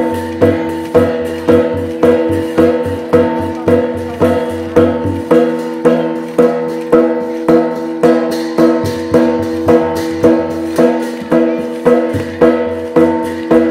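Traditional Tai Yai (Shan) dance music: drums and other percussion keeping an even beat of about two strokes a second over sustained ringing tones.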